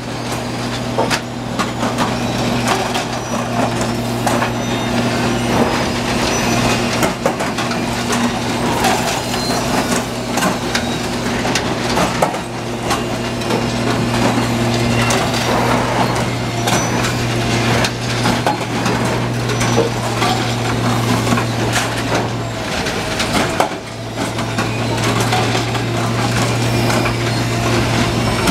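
Plasser & Theurer track renewal machine at work: its diesel engine hums steadily under a constant irregular clatter of knocks and crunches as old sleepers are lifted out and new concrete sleepers and rails are laid into the ballast. The engine hum drops away briefly about three quarters of the way through.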